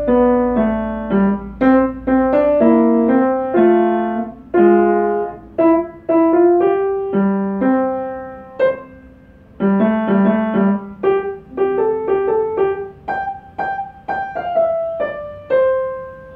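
Upright piano played solo: a lively melody of struck notes in the middle register. It eases off briefly about eight and a half seconds in, continues with quicker repeated notes, and a final note is struck right at the end.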